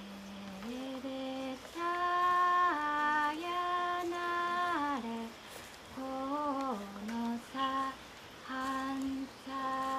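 A single voice singing unaccompanied, slow and drawn out, holding long notes that slide down at the ends of phrases.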